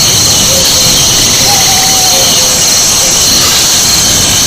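Rainforest ambience: a dense, steady, high-pitched chorus of insects, with a bird's soft whistled notes over it, including one longer, slightly falling whistle about a second and a half in.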